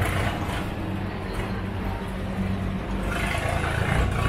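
Busy street ambience: a motor vehicle engine running close by, over a general hubbub of traffic.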